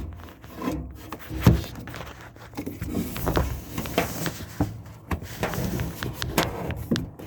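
Close handling noise: irregular rubbing and scraping with scattered small knocks as a hand and phone work down inside a front-load washer's cabinet.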